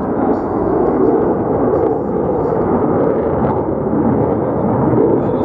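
Loud, steady jet noise from an F-35 Lightning II's F135 afterburning turbofan as the fighter flies its demonstration overhead, a dense low rumble with no break.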